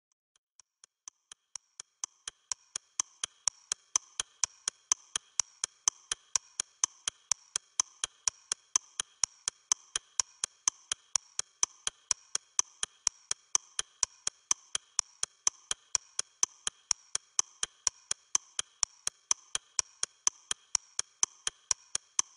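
Clock ticking, fast and even at about four ticks a second, fading in over the first two seconds.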